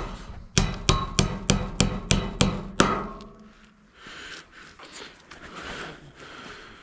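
Hammer driving a nail with a quick run of about eight ringing blows, about three a second, stopping near three seconds in.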